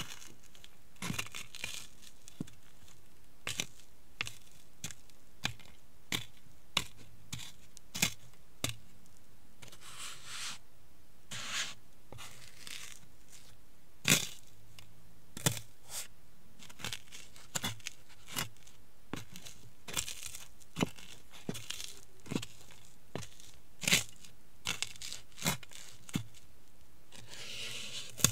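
Cheetos crunching and crackling as they are crushed under high-heeled sandals on a hard floor: irregular sharp cracks, at times a few a second, with softer grinding scrapes now and then.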